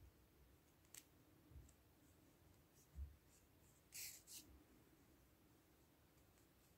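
Near silence with a few faint handling sounds of a sewing needle and acrylic yarn being worked through a crocheted flower: a light tick, a soft thump, and two short rustles about four seconds in.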